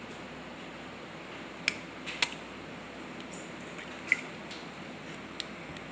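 An egg being cracked on the rim of a glass bowl: two sharp taps about half a second apart, then a fainter click with a short ring of shell or glass and one more small click, over steady background hiss.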